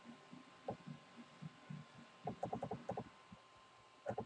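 Faint computer keyboard clicking: scattered single key taps, then a quick run of about eight taps a little past two seconds in and another pair near the end, over a faint steady high tone.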